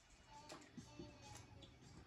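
Faint background music with a few soft clicks.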